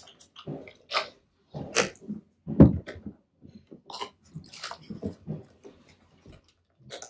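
Movement and handling noises close to the microphone: scattered soft rustles and taps, irregular, with one louder thump about two and a half seconds in.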